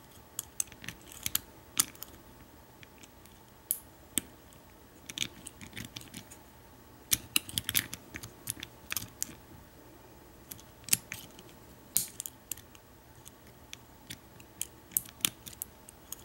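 American Lock 1100 padlock being single-pin picked: irregular light metallic clicks and ticks as the pick lifts the pins and the tension wrench shifts in the brass cylinder.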